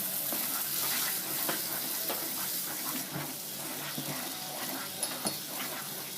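Tomato paste frying in hot oil and spices in a wok, a steady sizzle with occasional clicks of a utensil against the pan.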